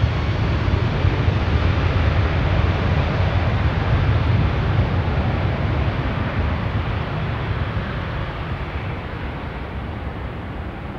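Boeing 777-200ER jet engines at takeoff thrust as the airliner accelerates down the runway: a loud, deep rumble with a rushing roar over it, loudest in the first few seconds and slowly fading as the aircraft moves away.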